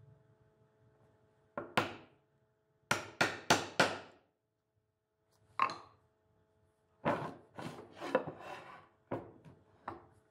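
Hammer striking a wood chisel to chop waste out of a joint socket: a series of sharp strikes, with a quick run of four evenly spaced blows early on and a denser run later.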